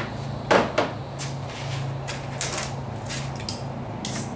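A series of short knocks and rattles, the loudest just over half a second in, over a steady low hum.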